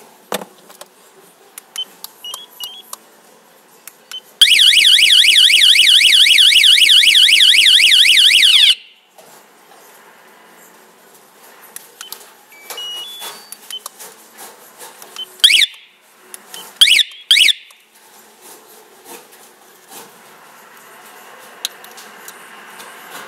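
Motorcycle alarm siren sounding a loud, fast warbling wail, rising and falling about five times a second, for about four seconds before cutting off. Later come three short, loud siren chirps, with faint beeps and plastic clicks from the alarm remotes' buttons in between.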